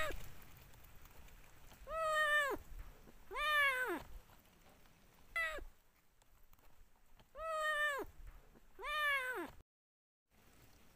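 A kitten meowing: five short, high calls, each rising then falling in pitch, coming in pairs with a short one between.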